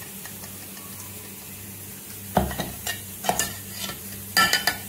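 Ginger-garlic paste being scraped and knocked out of a mixer-grinder jar into a glass bowl. Sharp knocks and scrapes start about halfway in and cluster near the end, over a steady low hum.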